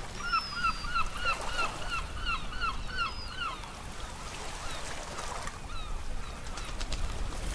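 A bird calls a quick run of about a dozen short, arched notes, about three a second, lasting a little over three seconds, over the steady low rush of sea waves.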